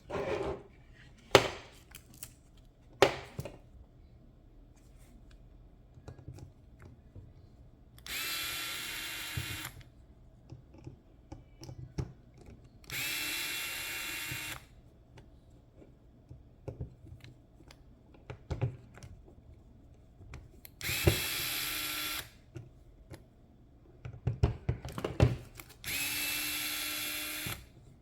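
Small electric screwdriver whirring in four short runs of about a second and a half each, driving screws out of the RC car's chassis. Sharp clicks and knocks of parts and screws being handled fall in between.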